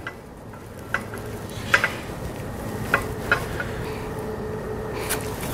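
Light metallic clicks and knocks, about five spread across a few seconds, over a low scraping, as a trailer leaf spring's rolled end with its new nylon bushing is worked into line with the spring hanger's bolt hole.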